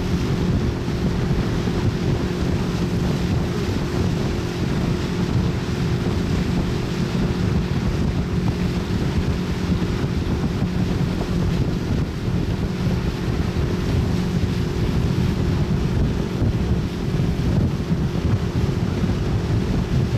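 Pontoon boat running steadily under way: an even motor hum, with wind buffeting the microphone and water washing past the hull.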